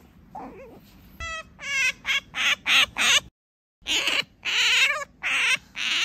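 Asian small-clawed otter squeaking: a string of short, high-pitched chirping calls in quick succession, breaking off about midway, then another run of loud squeaks.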